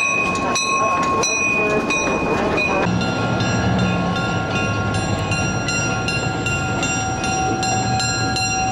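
Diesel switcher locomotive rolling past close by, its wheels knocking over the rail joints. About three seconds in the sound changes abruptly to the steady low running of a diesel locomotive, with a few steady whining tones over it.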